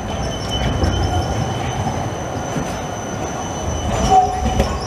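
Articulated low-floor electric tram rolling slowly through a curve, its wheels squealing on the rails in a thin, steady high whistle over a low rumble. A few sharp clicks about four seconds in as the wheels cross the track work.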